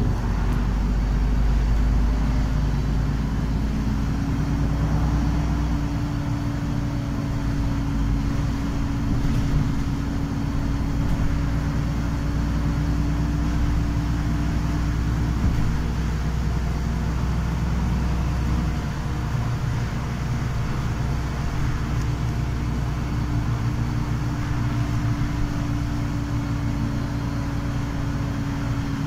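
Ride inside an articulated city bus on the move: a steady drive hum with continuous road and tyre noise from a wet road surface.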